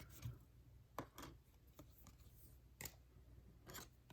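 Trading cards being handled, several short, faint rustles and clicks as the cards are slid over one another, with near silence between them.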